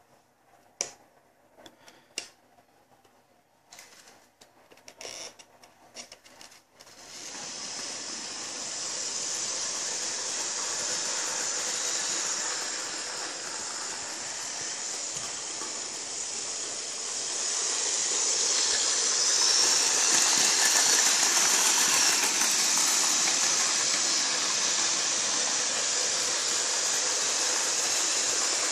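Model train running on sectional track laid on a hard floor: the small electric locomotive's motor and the freight wagons' wheels make a steady running noise. It starts about seven seconds in, after a few faint clicks, and grows louder about halfway through.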